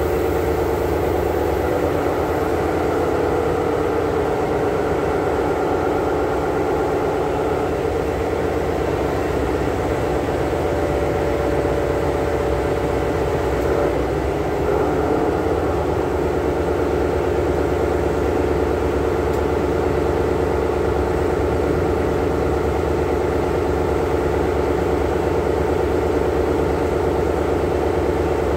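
Amtrak diesel locomotive idling steadily at a standstill: a constant low engine hum with a steady droning tone above it.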